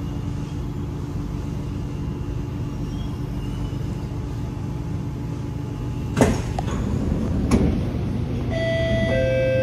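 Inside a stopped Kawasaki Nippon Sharyo C751B MRT car: a steady low hum, then about six seconds in two sharp clunks as the train door and platform screen door slide open, followed near the end by a two-note steady tone.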